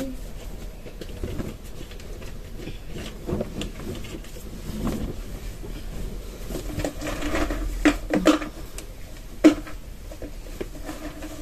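Cloth rustling as a cotton blouse is shaken out and pulled on over the head, with a few sharp clicks and taps in the second half.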